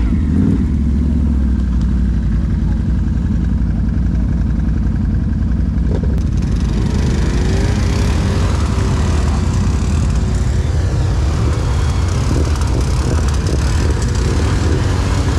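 ATV engine running steadily with a low drone. About six seconds in, a broad rushing, hissing noise joins it and continues.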